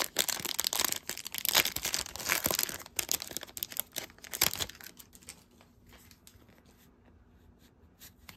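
Plastic wrapper of an O-Pee-Chee hockey card pack being torn open and crinkled, a dense crackling for about the first five seconds. After that it is quieter, with the light rustle and clicks of the cards being slid out and handled.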